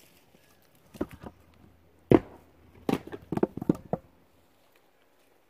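Split firewood logs knocking against one another as they are handled and stacked: about eight irregular wooden clunks, starting about a second in, the loudest just after two seconds, with a quick cluster near the end.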